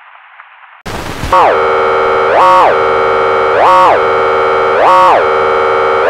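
Faint hiss, cut off about a second in by a short burst of noise. Then a loud, buzzy synthesized emergency alert tone comes in, its pitch swooping up and back down about every second and a quarter.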